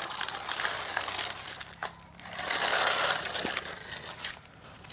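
Gritty crunching and scraping with scattered small clicks, growing louder about halfway through.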